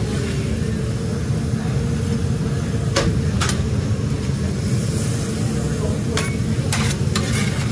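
Metal spatulas scraping and clacking on a flat-top griddle a few times as cheese-topped chopped steak is scooped up, over a steady low rumble of kitchen noise.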